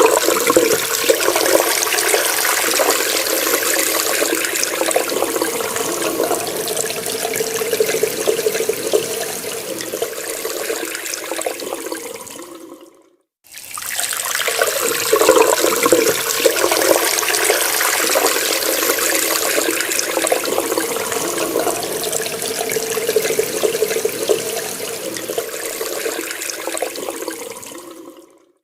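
Water running hard from a tap into a sink, a steady rush. Twice it fades away and stops, about 13 s in and again at the end, and after a half-second gap the same gush starts again.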